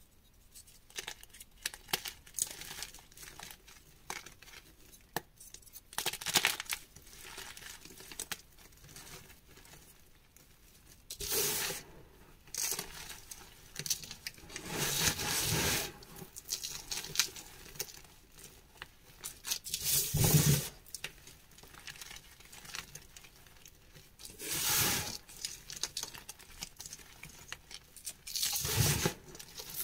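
Lumps of gym chalk crumbled and crushed between bare fingers: scattered crisp crackles at first, then several longer bursts of crunching as crumbs and powder fall back onto a heap of chalk.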